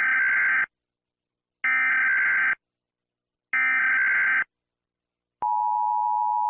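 Emergency Alert System alert opening: three short bursts of SAME header data tones, each just under a second long and about a second apart. About five seconds in they are followed by the steady two-tone EAS attention signal.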